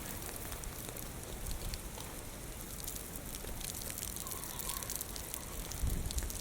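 Typhoon rain falling steadily, a dense patter of drops, with low wind rumble that gusts up near the end.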